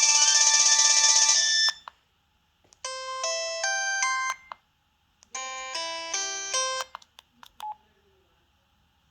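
Preloaded ringtones on an LG 200c phone, played through its small speaker. A loud, bright electronic melody stops about a second and a half in. Then a short, tinkly multi-note ringtone phrase plays twice with a pause between, followed by a few faint clicks.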